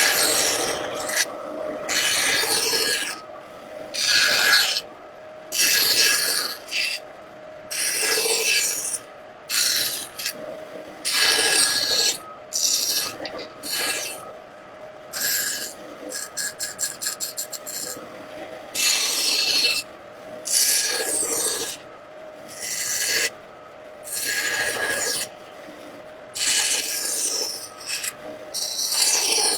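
A hand tool rasping and scraping across wood in repeated strokes, each lasting about half a second to a second and a half. About halfway through comes a quick run of short, rapid strokes.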